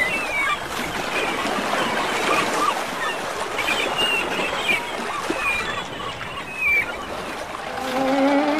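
Cartoon sound effects of sea water, a steady watery wash with short high chirps over it; near the end a rising sliding tone begins.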